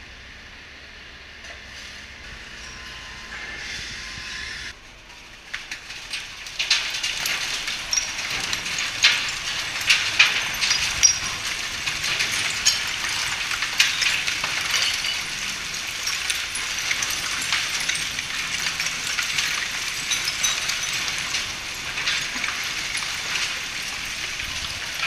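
ReTec bale opener breaking up a bale of refuse-derived fuel, the loosened waste pouring out of its discharge chute in a loud, dense hiss with many small clatters and ticks. The rush starts about six seconds in, after a quieter stretch of machine hum.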